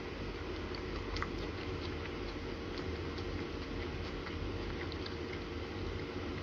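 Steady low room hum with a few faint, light clicks of a toddler's plastic spoon against a bowl as he scoops and eats.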